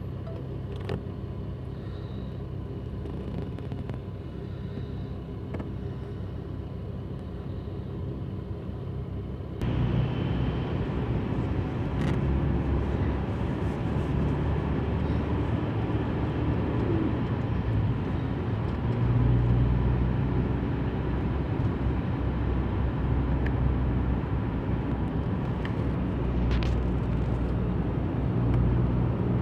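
Car engine and cabin noise heard from inside the car: a steady low idle hum while stopped in traffic, then about a third of the way in the sound turns abruptly louder into a fuller rumble of engine and road noise as the car drives on.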